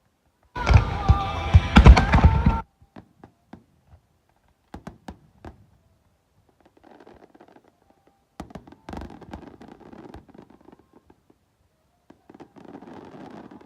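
Fireworks booming over loud music for about two seconds, then cutting off abruptly. After that come scattered faint taps and knocks, with patches of low noise.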